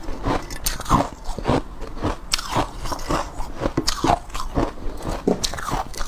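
A person biting and chewing a large block of soft white ice, a close-set, irregular series of crisp crunches and crackles.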